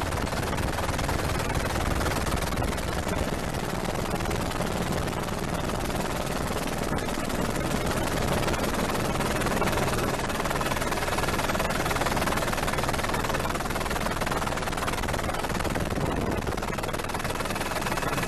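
Steady drone of a helicopter's engine and rotors with rushing air noise, unchanging throughout.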